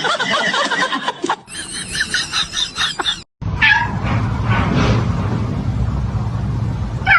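A cat meowing and yowling in gliding, wavering calls. After a short break, a steady low rumble with a few brief calls over it.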